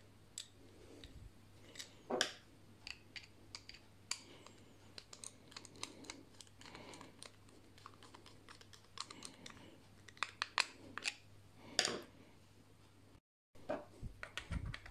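Irregular small clicks, ticks and taps of metal on metal as a flathead screwdriver turns the small orifice in a brass foam cannon body and the parts are handled, with a louder knock about two seconds in and another near twelve seconds.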